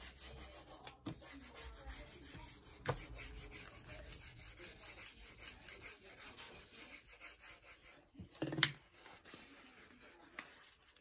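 Fingers rubbing a plastic transfer mask sheet down onto printed transfer paper, a faint, continuous dry rubbing that burnishes the mask so the printed image sticks to it. A little after eight seconds in, a short, louder rustle as the sheet is lifted off the desk.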